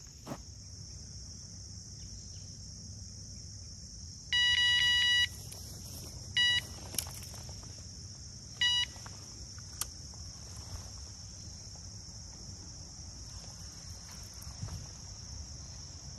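Electronic carp bite alarms on a rod pod beep as the rods are handled: one beep of about a second, then two short beeps. Under them, a steady high chorus of insects.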